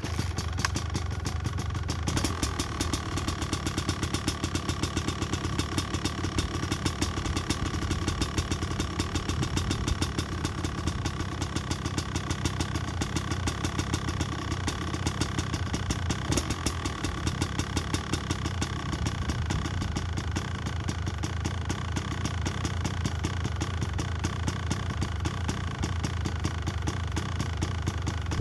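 Dirt bike engine running steadily at a low, even speed, close to idle, starting up abruptly at the beginning.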